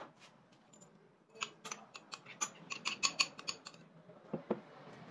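Metal spoon scraping and clinking against a glass bowl as fried onions and spices are pushed out: a quick run of clicks and scrapes, then two dull knocks near the end.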